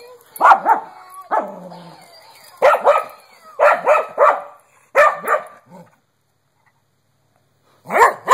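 A dog barking and yipping in a string of short bursts, then a pause of about two seconds before one more loud bark at the end.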